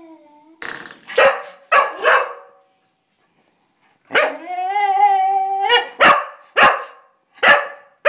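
English Cocker Spaniel puppy barking in short sharp barks, then giving one long steady whining cry of about a second and a half, then barking again three times: frustrated crying and barking to get at a door spring it wants to play with.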